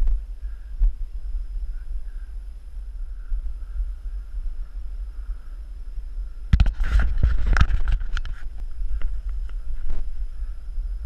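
Low rumble of wind and handling noise on a body-worn action camera's microphone while hiking through brush. About six and a half seconds in, a cluster of crackles and scrapes lasts a second or two: leaves, branches or rock rubbing against the camera as the hiker climbs.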